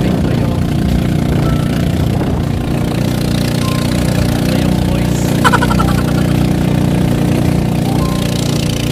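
Outrigger boat's engine running steadily while the boat is under way, with a brief sharper sound about five and a half seconds in.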